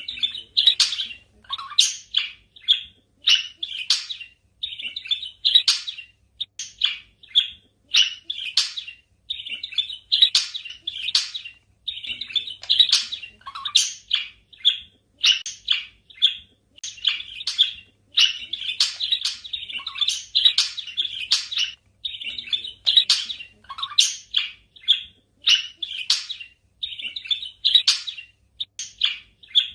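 Budgerigars chirping and chattering in quick, continuous strings of short high chirps with brief pauses.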